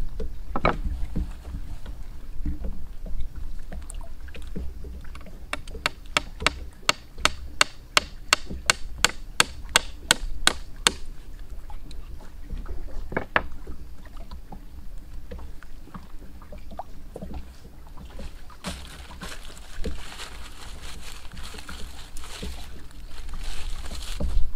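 A knife blade chopping into a soft, rotten wood stump: a quick, even run of about twenty sharp strikes, roughly four a second, with a few single knocks around it. Near the end, a stretch of scraping and crumbling as the soft wood is pulled apart by hand, over a low steady rumble.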